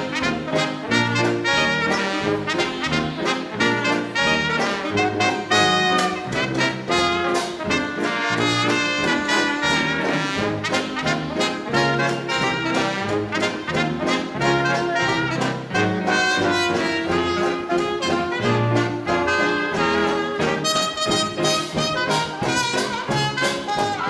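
A live 1920s-style hot dance band playing: trumpet and trombone lead over saxophones, with banjo, piano and drums and a steady pulse of sousaphone bass notes.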